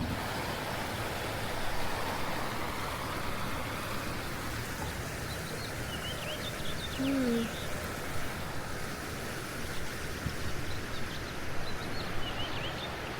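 Steady outdoor background noise, with small birds chirping a few times and a short low tone about seven seconds in.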